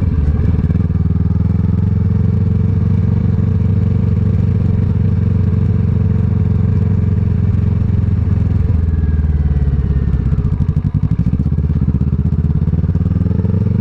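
Kawasaki ER-6n's parallel-twin engine, fitted with a Scorpion exhaust, running steadily under way. About eight and a half seconds in the revs drop, then climb again over the next few seconds.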